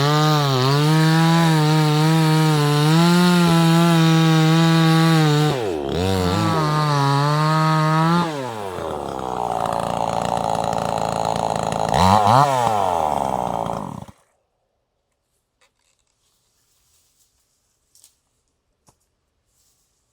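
Two-stroke gas chainsaw running at high revs with a steady engine note, dipping briefly twice around 6 s in. The throttle then drops back about 8 s in, the engine revs up once more briefly, and it shuts off abruptly about two-thirds of the way through. A few faint clicks follow.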